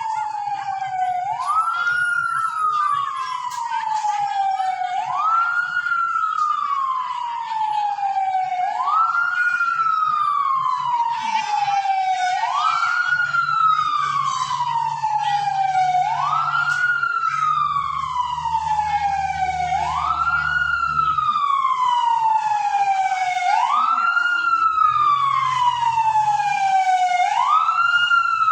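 A siren-like wail, heard as the 'strange sound', repeating about every three to four seconds. Each cycle rises quickly and then falls slowly. A low, steady hum comes in about halfway through.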